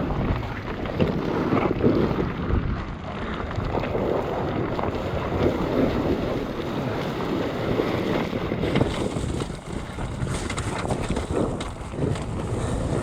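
Wind buffeting the microphone: a steady, rough rushing noise.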